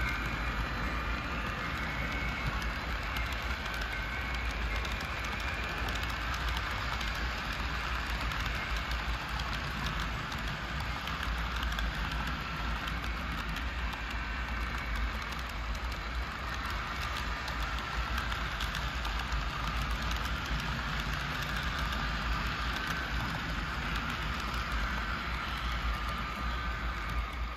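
HO scale model freight cars rolling past on the track: a steady rattle of small metal wheels with many fine clicks, over a low rumble.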